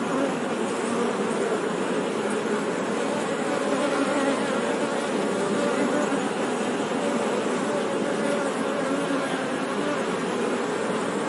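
Many honey bees buzzing together in a steady, dense hum of overlapping wavering tones.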